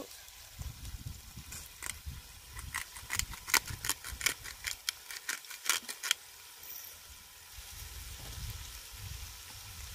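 Pink Himalayan salt grinder twisted over the pot: a rapid run of sharp, dry clicks lasting about four seconds, starting a second or so in. Beef mince sizzles faintly in the cast iron pot underneath.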